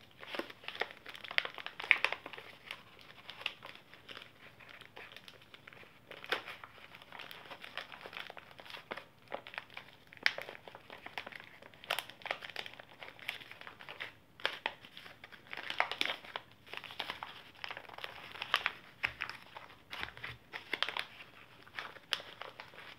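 Small packaging pouches crinkling as they are handled and pulled open, in irregular sharp crackles.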